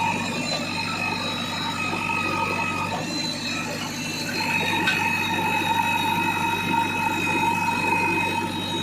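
Diesel engine of heavy earth-moving machinery running steadily, with a steady high-pitched whine over a low hum.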